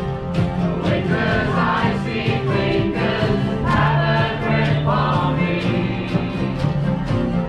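Sea-shanty band performing live: several voices singing together over strummed acoustic guitars, with a steady beat of about three strokes a second.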